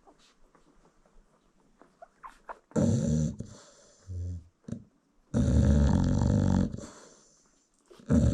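American Bully dog snoring: after a couple of quiet seconds with faint soft clicks, a loud rasping snore, a softer low one, then a longer loud snore, with another starting at the very end.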